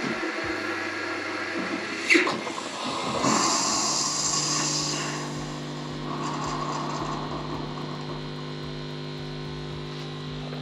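Siemens EQ500 fully automatic espresso machine running through a latte macchiato: a steady pump hum, a sharp click about two seconds in, then a hiss of steam for about two seconds before the machine settles into a steady lower hum.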